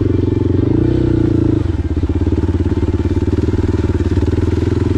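Adventure motorcycle's engine running under way. The engine note rises briefly about a second in, then drops back and carries on steadily.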